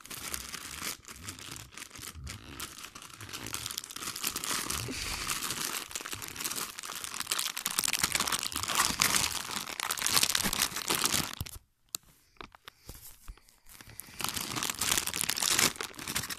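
Thin clear plastic toy bag being crinkled and torn open by hand, a dense run of crackling and rustling. It pauses briefly about three quarters of the way through, then crinkles again.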